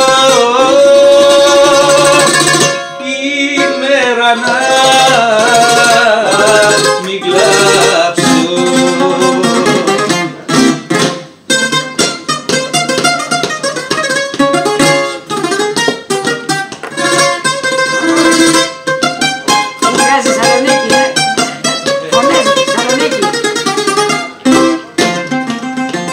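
A man singing a Greek song and accompanying himself on a bouzouki, with sung lines and quickly picked melody runs and chords on the doubled strings.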